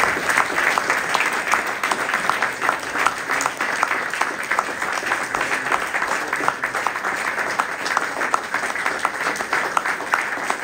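Audience applauding: a roomful of people clapping steadily, easing off slightly toward the end.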